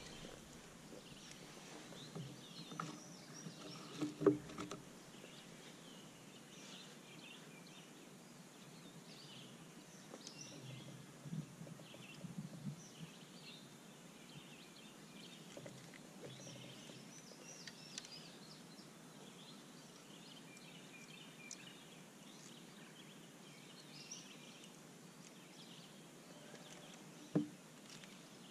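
Faint outdoor background of birds chirping and singing, with a few sharp knocks; the loudest knock comes about four seconds in and another comes near the end.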